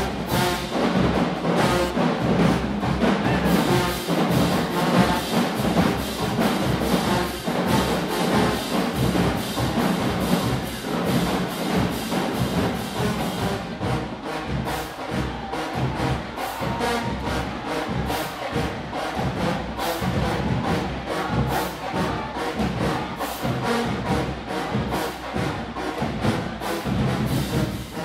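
High school marching band playing: a loud brass section over drums, with the drum strikes keeping a steady, even beat.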